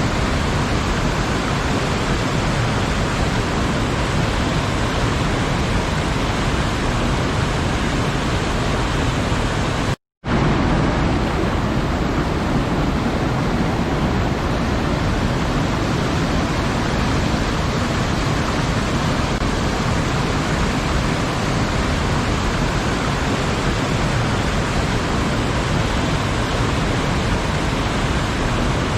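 Waterfall rushing: a steady, loud hiss of falling water, cut by a brief moment of complete silence about ten seconds in before it resumes unchanged.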